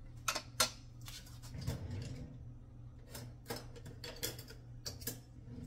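Kitchen utensils being handled, with several short sharp clicks and knocks, over a steady low hum.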